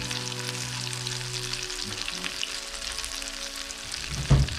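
Potato-and-cheese cutlets frying in shallow oil in a pan over a low flame: a steady sizzling hiss with fine crackles. A single low thump about four seconds in.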